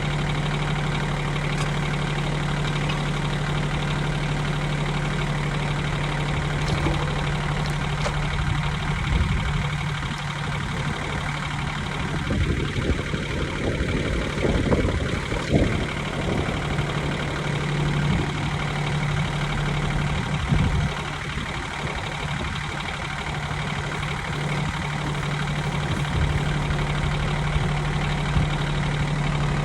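Kioti CS2610 subcompact tractor's three-cylinder diesel engine idling steadily, with a few irregular clunks and knocks about halfway through.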